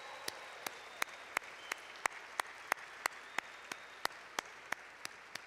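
Audience applauding, with one set of claps standing out in an even beat of about three a second; it dies away near the end.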